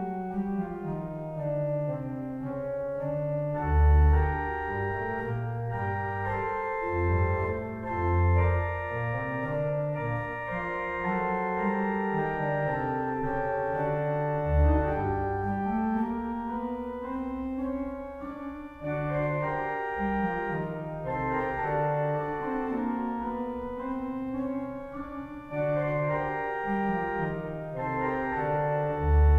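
Pipe organ playing slowly, with sustained chords and gently moving lines. Deep bass notes sound now and then, loudest about four seconds in and at the very end.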